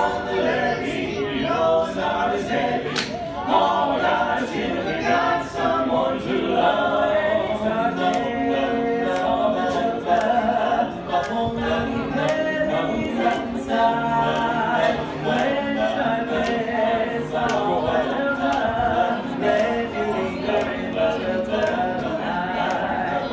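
Male barbershop quartet singing a cappella in close four-part harmony, with held chords and moving lines.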